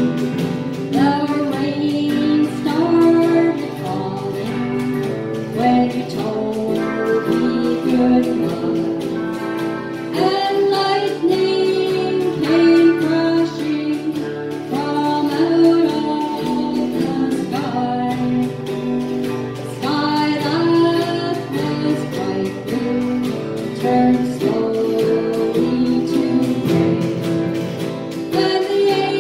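A woman singing a song, accompanied by an acoustic guitar; her voice comes in about a second in.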